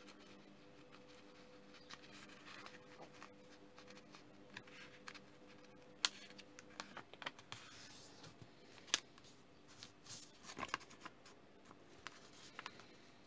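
Sheet of origami paper being folded and creased by hand: faint rustling with a few sharp crackles as the fold is pressed, the loudest about six and nine seconds in. A faint steady hum runs underneath.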